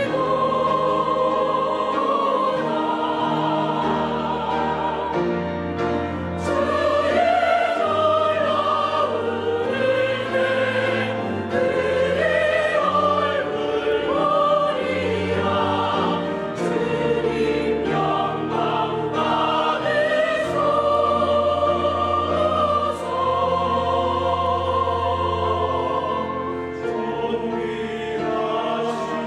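Church choir singing a hymn anthem in parts, with sustained notes over an instrumental accompaniment.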